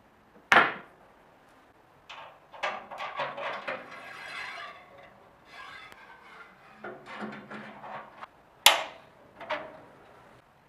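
Metal parts being handled and fitted: a sharp clank about half a second in, a few seconds of irregular rattling and scraping, and another sharp clank near the end.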